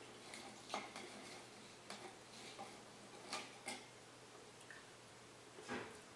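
Pringles crisps clicking and rustling as a hand reaches into the cardboard tube and draws one out: a handful of faint, separate clicks, with a louder crackle near the end.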